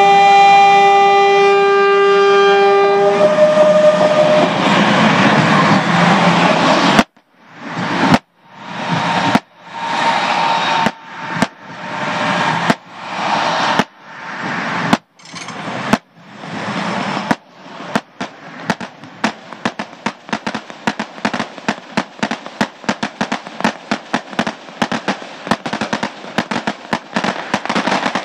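Tren Maya train's horn sounds a chord for about three seconds as the train runs past. About seven seconds in, fireworks begin: a run of separate bursts about a second apart, each swelling and then cutting off. These give way to rapid firecracker crackling.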